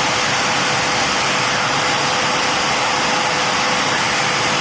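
Dyson DC40 upright vacuum cleaner running with its brush bar switched on: a loud, steady rush of air with a steady high whine from the motor.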